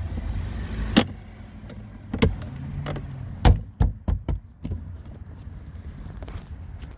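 A string of sharp knocks and clicks, about seven in all, from car door parts and tools being handled and set down. A short low hum comes between them a few seconds in.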